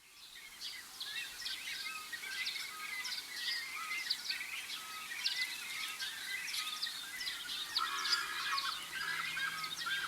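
Dawn-style chorus of many birds feeding in blossoming trees: a dense tangle of overlapping chirps, twitters and quick downward-sweeping calls, fading in at the start. A faint low steady hum comes in near the end.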